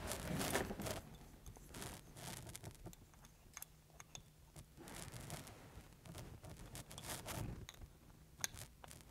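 Faint clicks and scrapes of small metal parts being handled and fitted to an FX Crown air rifle's action block, with a few sharper clicks, and an open-end wrench working on a fitting near the end.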